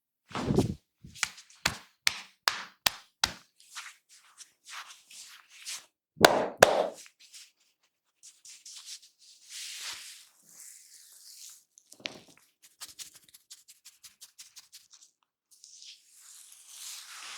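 Hands striking during a barber's head massage: a heavy slap, a quick run of about six sharp claps or taps, another heavy slap about six seconds in, then softer rubbing and scattered light taps.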